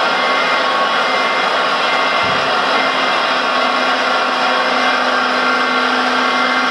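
Hydraulic pump of an RC model Liebherr 956 excavator whining steadily under load as the boom and stick move, with a brief low thump about two seconds in.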